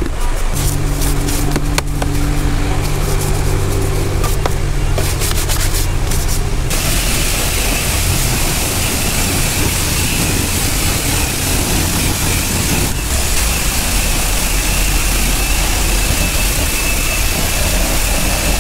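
Trigger spray bottle squirting degreaser in quick repeated strokes over a low steady hum. About seven seconds in, a self-serve car wash high-pressure wand starts spraying: a steady hiss of water that lasts to the end.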